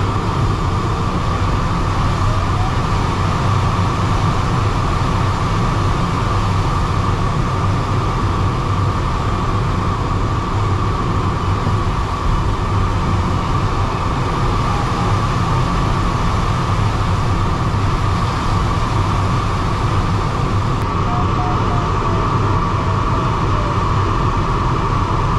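Steady rush of air over a DG303 sailplane in flight, heard inside the cockpit, with a constant low rumble and an even band of higher noise.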